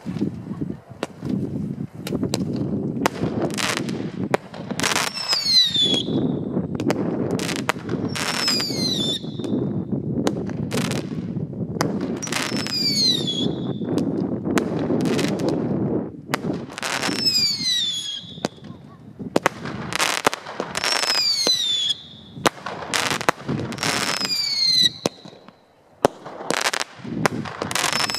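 Fireworks going off: clusters of sharp bangs, each followed by a falling whistle, repeating about every four seconds over a steady low rumble.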